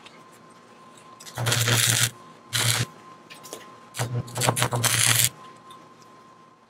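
Stick (arc) welder crackling and buzzing in three bursts, about one and a half seconds in, near three seconds, and for about a second from four seconds in: short welds joining a steel tube eye to an auger bit's shank.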